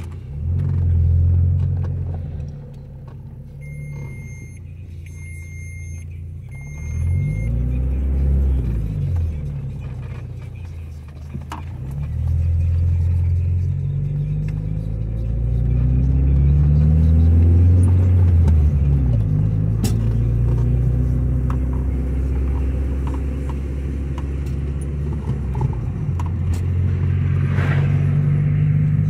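Car engine running while driving along a road, its pitch rising and falling as it accelerates, shifts and eases off. Three short electronic beeps sound about four to seven seconds in.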